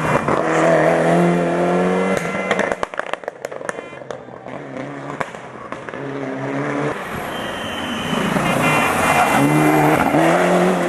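Rally cars at full speed: the first car's engine passes close, then a quick run of sharp pops and crackles from its exhaust as it goes away. The engine of a second car, a Mitsubishi Lancer Evolution, rises in pitch through gear changes and grows loud near the end as it passes.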